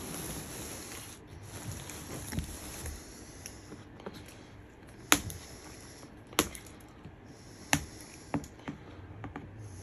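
Plastic zip-tie tails being snipped off flush with a small hand cutter: a few sharp snips roughly a second apart in the second half, after some soft handling of the plastic.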